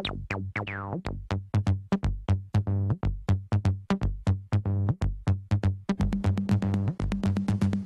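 Electronic background music: a fast, even beat of short sharp hits over a steady low bass.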